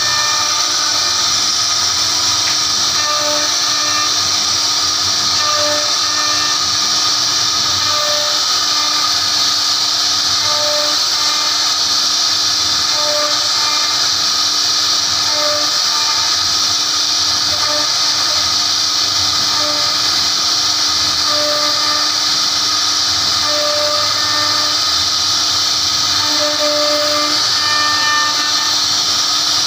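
CNC router spindle running at high speed while its carving bit cuts a relief pattern into a wooden panel: a steady loud whine with cutting hiss. Short tones recur every two to three seconds as the bit moves through the wood.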